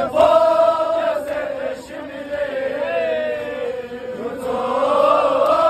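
Men's voices chanting a noha, a Shia mourning lament for Muharram, in long held, wavering lines with no pauses.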